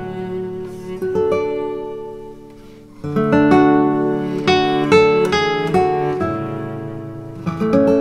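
Background music on acoustic guitar: plucked notes that ring and die away, then a fuller strummed chord about three seconds in and more picked notes after it.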